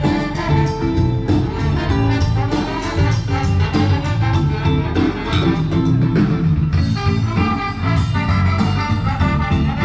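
A band playing upbeat jazzy swing music with horns over a steady beat.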